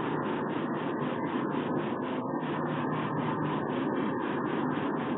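Steady low rushing background noise from an outdoor webcam microphone, with a faint regular pulsing about four times a second in the hiss and no falcon calls.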